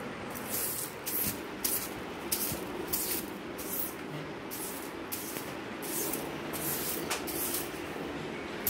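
Rhythmic swishing strokes on a bedsheet, about two a second, as the bed is brushed down.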